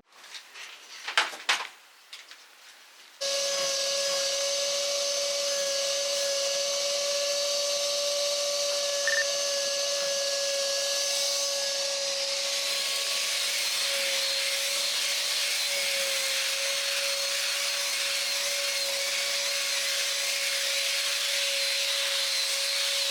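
A few light knocks, then about three seconds in a machine starts abruptly and runs with a steady whir and a constant hum.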